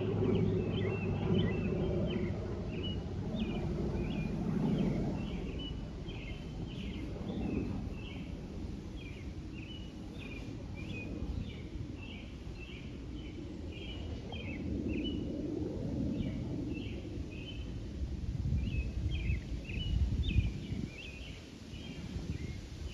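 Low drone of a distant airplane passing high overhead, easing after the first few seconds, under a continuous rapid chatter of small birds chirping.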